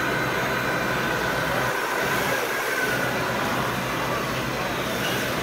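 Large-scale RC Caterpillar 993K wheel loader model running, its hydraulic pump whining steadily with slight shifts in pitch as it lifts a full bucket of gravel.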